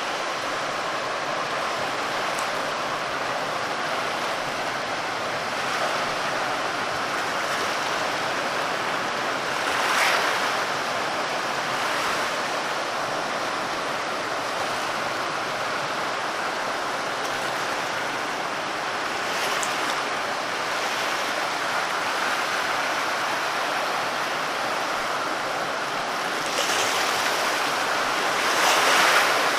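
Sea waves washing on the shore in a steady surf noise, with louder breakers swelling about a third of the way in and again near the end.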